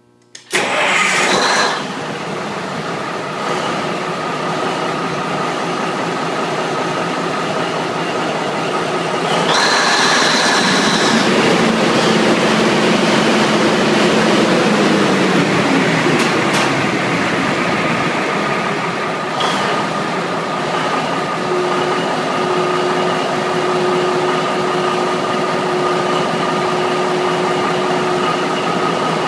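Cummins NTC-855 turbocharged inline-six diesel starting cold on fresh oil: it fires about half a second in and runs on steadily. About ten seconds in it gets louder and a high whine comes in, which holds to the end.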